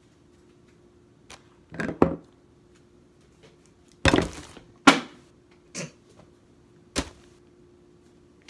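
Groceries being set down on a kitchen countertop one after another: a string of about six knocks and thumps spread over several seconds, the loudest near the middle.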